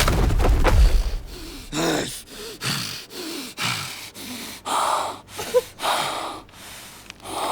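A person breathing hard, a series of heavy panting breaths and gasps about one a second. A loud sound dies away in the first second.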